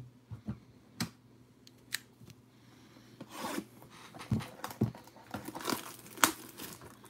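A few taps and knocks of a cardboard trading-card box being handled, then plastic shrink-wrap being torn and crinkled off the box from about halfway through, with sharp snaps of the plastic.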